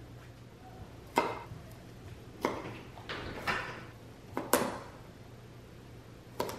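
Kitchen knife slicing through a raw carrot, each cut ending in a sharp knock of the blade on a wooden cutting board: about six cuts, spaced roughly a second apart, two of them in quick succession.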